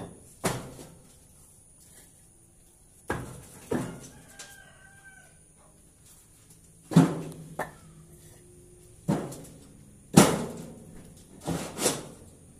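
Pressed stone blocks knocking against each other as they are set down on a stack: about nine sharp stone-on-stone knocks at uneven intervals, some in quick pairs.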